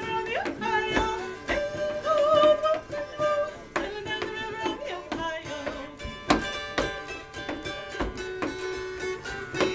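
A woman singing to her own mountain dulcimer accompaniment, a held drone sounding under the melody. Her voice drops out after about five seconds, and the strummed dulcimer carries on.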